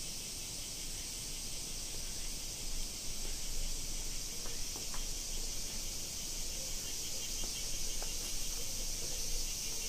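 Steady high-pitched chorus of insects chirring in mountain woodland, with a few faint clicks.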